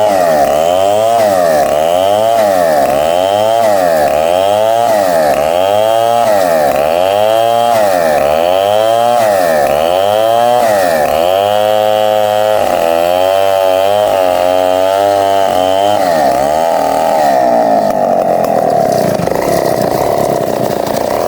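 Power saw running loud, its whine swinging up and down in pitch about once a second. Later the swings flatten out, and near the end the tone gives way to a rougher, noisier sound.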